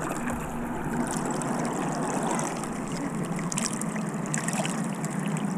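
Water sloshing and trickling around a large redfish held at the surface by a lip grip, the fish stirring the water as it is held.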